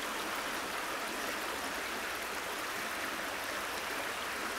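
River water flowing over rocks: a steady, even rush of running water.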